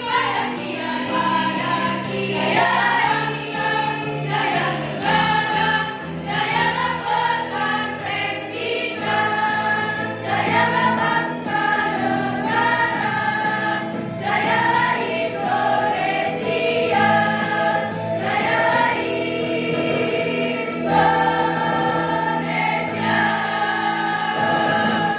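Girls' choir singing a song together, with sustained low notes underneath.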